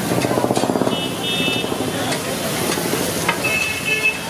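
Lamb brains frying on a large hot steel tawa, sizzling steadily as the griddle steams, with street traffic behind and two short high horn-like tones.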